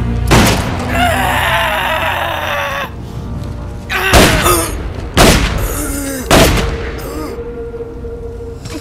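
Film soundtrack of gunshots over a brooding music score. One heavy shot comes just after the start and is followed by a drawn-out, wavering cry of pain. Three more shots come about a second apart in the middle.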